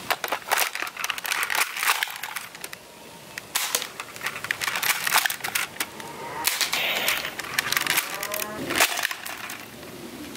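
Irregular plastic clicks, rattles and cracks from a toy sniper rifle being handled, its box magazine pushed in and the gun shouldered to aim.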